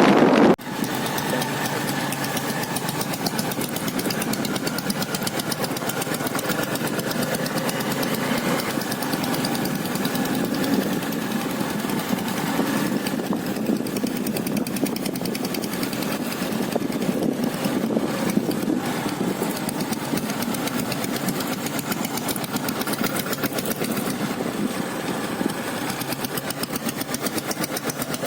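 Royal Enfield Taurus diesel motorcycle's single-cylinder diesel engine running steadily at an even, knocking beat, with no change in speed. About half a second in, a loud rush of wind on the microphone cuts off abruptly.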